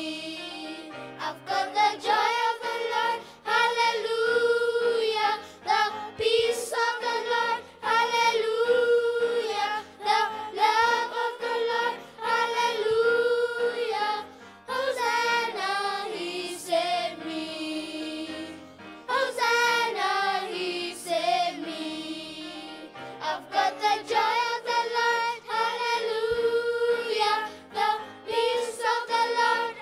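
Children singing a gospel song in phrases, with different children taking solo lines in turn at the microphone.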